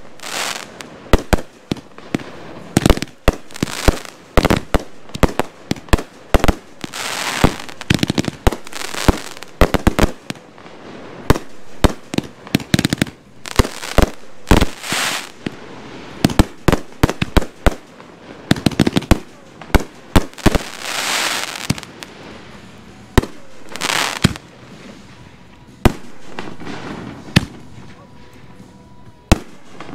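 Consumer aerial fireworks going off in quick, irregular succession: dozens of sharp reports of launches and bursts, broken by rushes of noise lasting about a second each.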